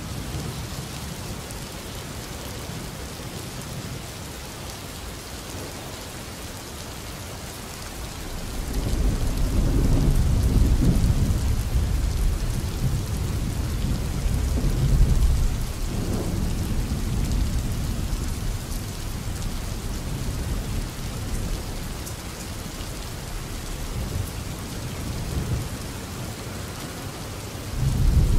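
Steady rain with rumbles of thunder. A long rumble builds about a third of the way in and fades over several seconds, and another starts just at the end.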